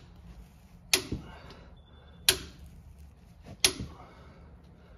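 Click-type torque wrench set to 40 foot-pounds clicking as it reaches torque, three sharp metallic clicks about a second and a half apart.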